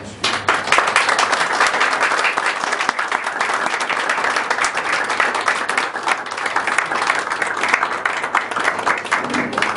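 Audience applauding, a dense steady clapping that holds throughout.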